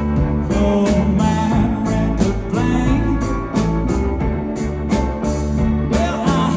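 Live band playing, with electric guitars over bass and a steady drum beat.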